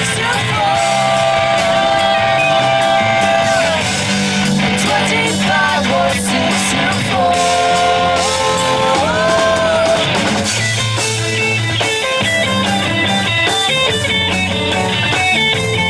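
Live rock band playing: long held, bending melody notes over bass and drums, then a fast run of electric guitar notes from about ten seconds in.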